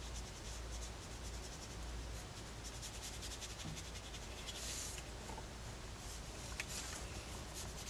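Faint, quick scratchy strokes of a drawing tool on sketchbook paper as a drawing is coloured in, a little louder about four and a half seconds in.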